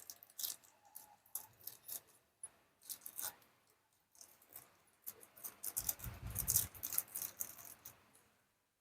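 Faint, scattered clicks and rattles of small metal screws from a door knob kit being handled and picked out, with a denser spell of rustling and clinking about six seconds in.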